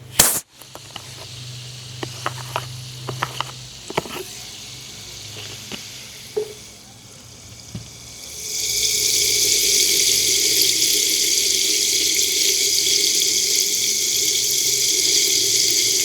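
A sharp knock right at the start and a few light clicks of handling. Then, about eight seconds in, a loud steady hiss begins: pressurised carbonation gas escaping as the cap of a freshly fizzed SodaStream bottle is loosened.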